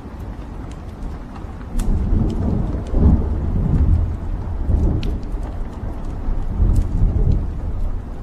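Wood fire burning in a fireplace: scattered sharp crackles and pops over a low rumble of the flames, which swells louder about two seconds in and eases near the end.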